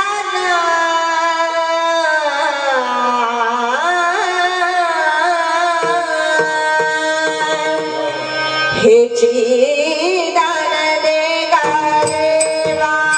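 A girl singing a Marathi devotional bhajan in raga Bhairavi, drawing out long, ornamented notes that slide down over the first few seconds. Tabla strokes join in about halfway through.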